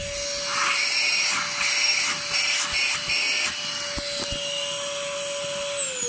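SilverCrest handheld cordless vacuum running on max mode: a steady high motor whine over the rush of air as it is moved across the carpet. Near the end the whine starts to drop in pitch as the motor winds down.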